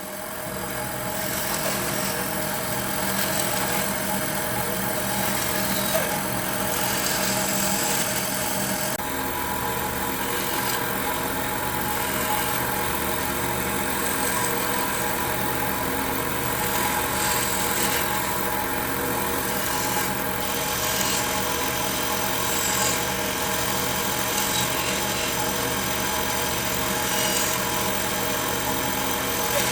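Electric power tool running steadily against wood: a constant motor hum with a rough, rasping grind as the wood is worked, the grit noise shifting a little every second or two.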